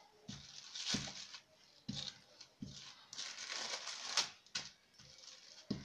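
Wooden rolling pin rolling maize-flour dough between thin plastic sheets on a stone counter: irregular crinkling rustle of the plastic with a few soft knocks as the pin is pressed and lifted. Toward the end the top plastic sheet is lifted and crinkles.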